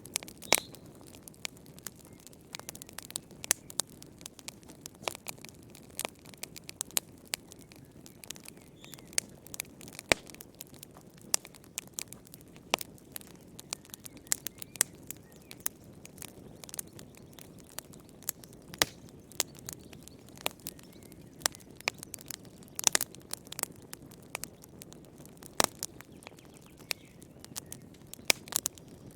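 Wood fire crackling in a fireplace: irregular sharp snaps and pops, several a second, over a soft steady rush of flame.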